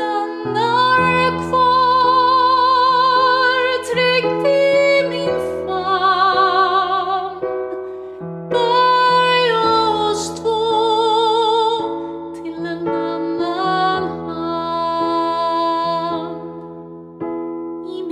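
A woman singing long notes with vibrato over piano and sustained keyboard chords: a slow, tender song in phrases, with short breaks between them.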